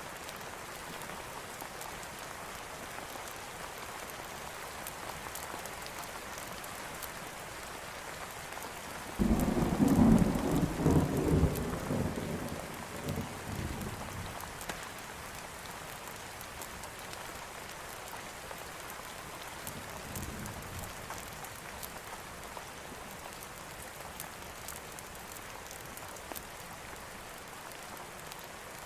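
Steady rain falling, with a sudden loud clap of thunder about nine seconds in that rolls on for several seconds and fades, and a faint low rumble of thunder again around twenty seconds in.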